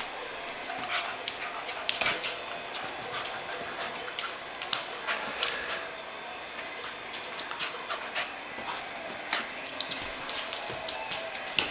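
Small dog panting as it plays, its claws clicking and scrabbling on a hardwood floor in many quick, irregular ticks.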